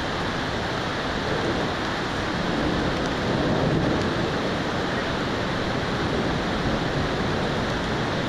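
Steady hiss of heavy rain in a thunderstorm, with a low rumble of thunder swelling about three seconds in.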